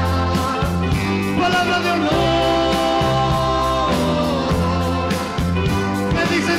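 Pop-rock band music with a steady beat, bass line and held melody notes.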